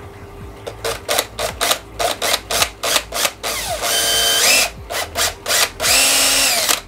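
Makita cordless drill reaming out a bolt hole in a 3D-printed plastic part. The motor is pulsed in short bursts, about three a second, then run for two longer spells of about a second each, its whine rising, holding steady and falling away.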